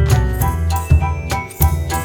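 Background music: an upbeat track with a steady bass line, plucked or struck melody notes and jingling percussion.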